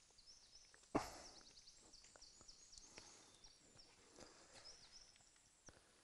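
Faint outdoor quiet with high, twittering bird chirps scattered throughout and a few small clicks. A single sudden thump comes about a second in.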